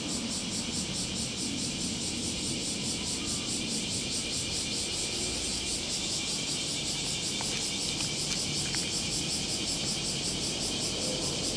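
Cicadas singing in a steady, high, evenly pulsing chorus over a low steady rumble, with a few faint clicks about two-thirds of the way through.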